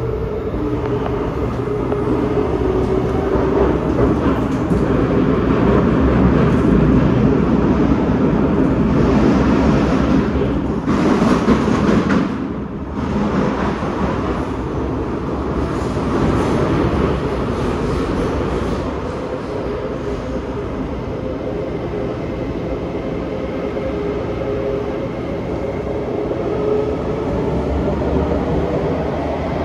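Kawasaki Nippon Sharyo C751B metro train heard from inside the car while running: steady wheel and rail noise with a faint motor whine, a louder rush about eleven seconds in, and a whine that climbs in pitch over the last several seconds as the train gathers speed.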